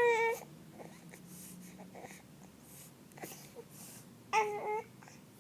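Baby babbling: two short, high-pitched vocal sounds, one at the start and one about four seconds in, with a few faint short sounds in between.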